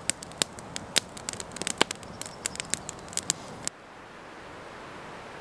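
Small campfire of dry sticks crackling, with many sharp pops and snaps. About two-thirds of the way through it cuts off abruptly to a steady rushing hiss.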